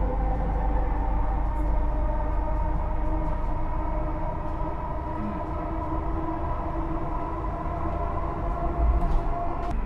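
Delhi Metro train running along elevated track, heard from inside the coach: a steady rumble of wheels on rail with a steady whine over it, and a couple of knocks about nine seconds in.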